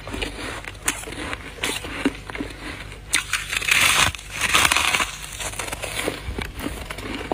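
Dry freezer frost crunching and crackling in a run of sharp little cracks, with a louder grating stretch about three to five seconds in.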